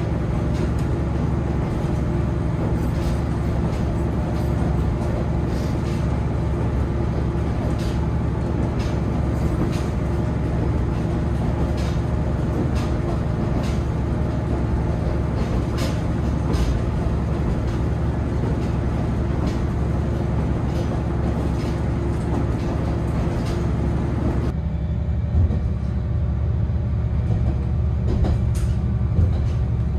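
Diesel railcar running along the line, heard from inside the passenger car: a steady low engine drone with a rushing noise over it and occasional short clicks of the wheels over rail joints. About 24 seconds in the rushing noise drops away suddenly, leaving the engine drone with a few louder joint knocks.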